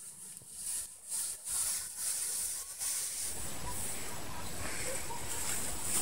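Tall grass swishing in quick, uneven strokes as it is pushed through on foot. About three seconds in, this turns into a continuous rustle.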